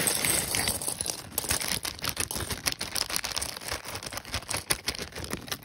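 A crinkly plastic bag of LEGO pieces being handled and opened: continuous rustling and crinkling with many quick clicks.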